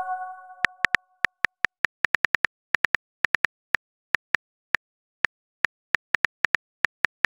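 Phone keyboard key-click sounds, a fast, irregular run of short taps as a text message is typed out. A message-alert chime is fading out at the start.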